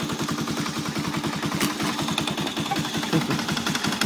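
2011 Polaris Sportsman 500's single-cylinder four-stroke engine idling steadily with rapid, even pulses, its exposed CVT clutches and belt spinning. The owner says the clutch is making a slight squeak.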